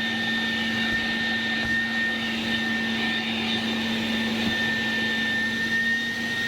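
Handheld electric air blower-vacuum running steadily on suction at its highest speed, a loud steady whine over a lower motor hum.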